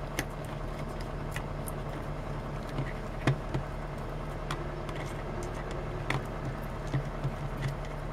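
Scattered light clicks and taps as a hand screwdriver turns screws out of a small plastic toy battery box and the box is handled, over a steady low hum.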